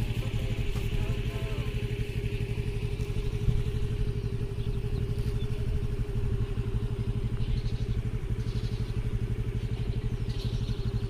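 Motorcycle engine idling steadily close by, with a fast, even pulse.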